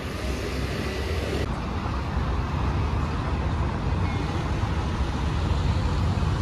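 Street traffic with a motor vehicle running close by: a steady low rumble that grows gradually louder.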